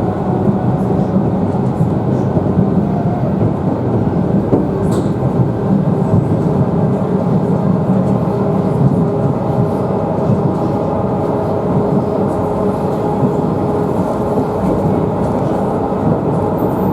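Electric commuter train (elektrichka) running at speed, heard from inside the carriage: a steady, loud rumble of wheels on rails with a faint steady whine.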